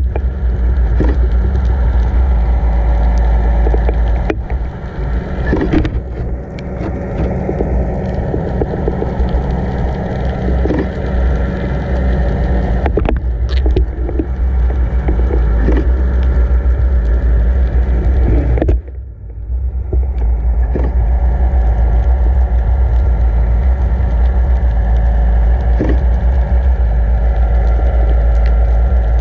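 Steady low rushing rumble of water flowing past a GoPro housing towed underwater, with the steady hum of the towing boat's motor running through it. The noise drops away for about a second about two-thirds of the way through, then returns.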